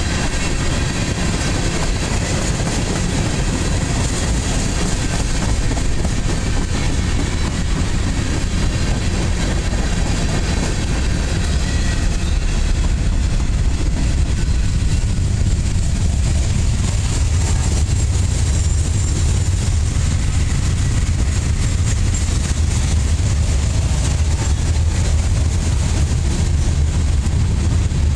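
Freight train cars rolling past close by: a steady rumble of steel wheels on the rails as tank cars and gondolas go by.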